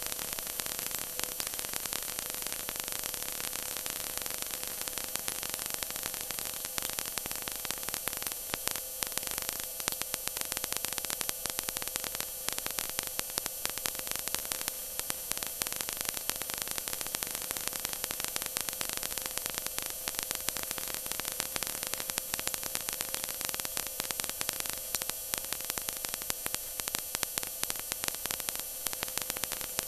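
Stock car's V8 engine running flat out at steady revs, picked up by an in-car camera: a harsh, distorted hiss with a steady hum under it.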